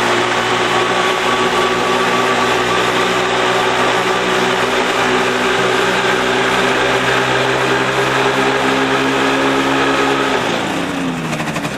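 Gyroplane engine and propeller running steadily at raised power, with a high whine over the engine note. About ten and a half seconds in, the pitch drops as the engine slows.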